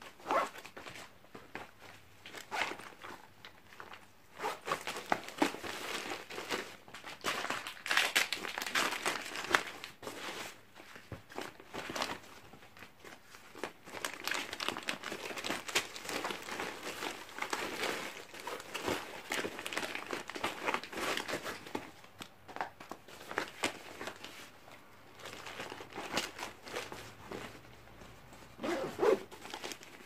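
Rustling and crinkling of packets and small items handled and pushed into a backpack, with irregular light clicks and knocks.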